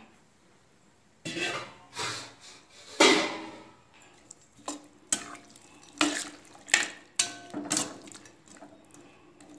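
A perforated metal ladle scrapes and clinks against the side of a metal pan as the watery vegetable gravy is stirred. The strokes are irregular and start about a second in, and some of the clinks ring briefly.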